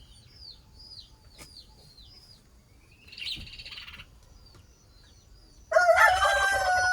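Bush lark giving a run of short, high chirps, each sliding downward, with a brief harsher call about three seconds in. Near the end a rooster starts crowing, a long, held call that is the loudest sound.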